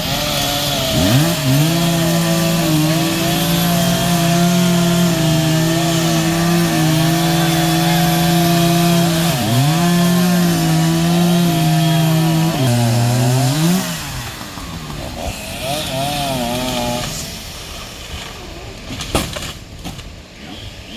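Two-stroke chainsaw revving up and cutting through wood. Its engine pitch dips and recovers twice, and it cuts off about two-thirds of the way through. A sharp knock follows near the end.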